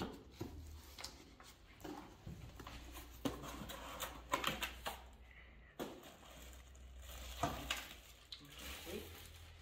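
Cardboard packaging being handled: irregular knocks and rustles of box flaps and a cardboard insert, and plastic wrap rustling around a wrapped lamp shade as it is gripped, over a low steady hum.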